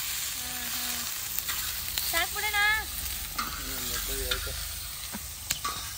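Chicken feet sizzling in a large wok as they are stirred with a metal spatula. The spatula scrapes and now and then clicks sharply against the pan.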